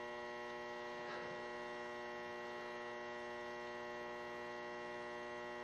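Steady electrical mains hum, a buzzy tone with many overtones at an even, low level.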